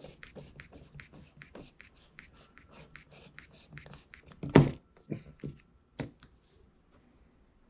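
Quick light clicking, about four to five ticks a second, as a circular polarizer filter is turned on a camera lens by hand. About halfway through comes one loud knock, then a few single handling clicks.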